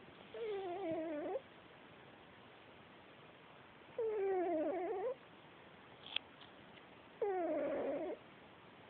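A domestic cat snoring: three pitched, wavering snores, each about a second long and roughly three and a half seconds apart, with a short click between the second and third.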